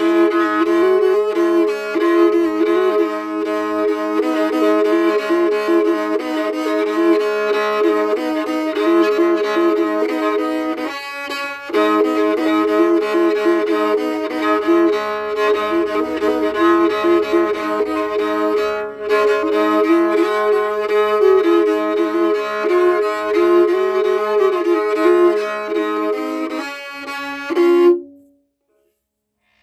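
Homemade tagelharpa (bowed lyre) with violin and viola strings, played with a bow: a wavering melody over steady drone notes. The playing breaks off briefly about a third of the way in and stops near the end.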